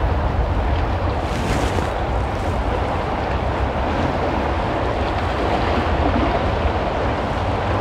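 Inlet waves surging and washing over shoreline boulders in a steady rush, with a brighter splash about a second and a half in. A deep rumble of wind buffets the microphone underneath.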